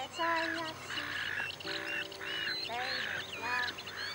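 Many waterbirds calling at once: wavering, honking duck- and goose-like calls overlap, with higher chirps and whistles above them.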